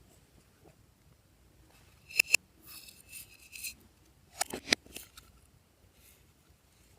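Glossy slime being squeezed and stretched by hand: a pair of sharp sticky clicks about two seconds in, a run of small crackling pops, then another cluster of clicks near the middle.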